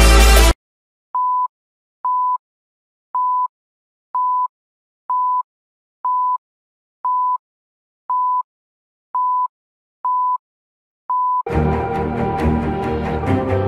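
Countdown beeps: eleven short, identical single-pitch tones, one a second, in silence, marking the numbers of an on-screen countdown to zero. Electronic intro music cuts off suddenly just before the beeps, and new music starts right after the last one.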